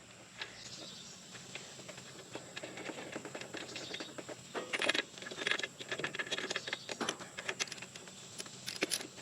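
Light, irregular metal clicking and ticking as a new NGK BPR4ES spark plug is threaded into the Kawasaki FS541V engine's cylinder head, getting busier after a couple of seconds.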